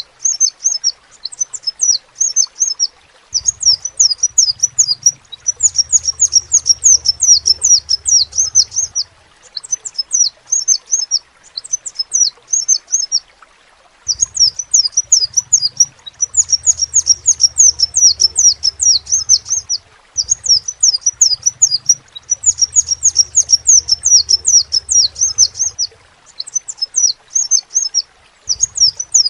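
Crimson sunbird (kolibri sepah raja) singing: rapid, high, thin chirping trills in runs of several seconds broken by short pauses.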